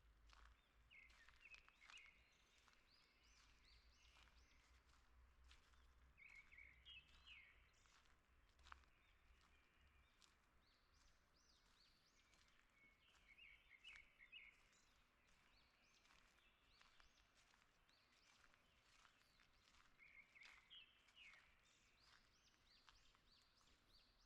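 Faint songbird song: the same short chirping phrase comes four times, about every seven seconds, with scattered fainter chirps from other birds between.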